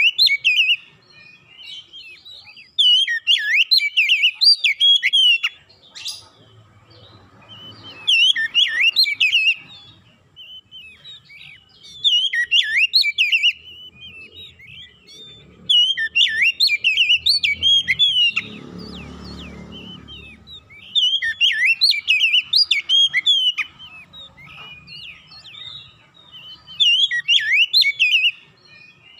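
Oriental magpie-robin (kacer) singing: bursts of fast, varied whistled and warbling phrases lasting one to three seconds, repeated about every four seconds with short pauses between.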